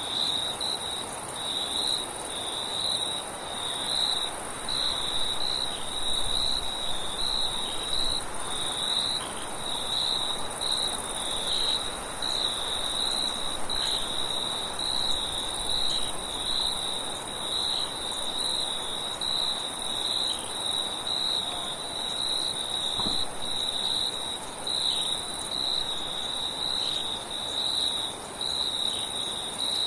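A steady chorus of crickets chirping: one even trill that pulses slightly, and a second, higher-pitched one, over a soft hiss of wind.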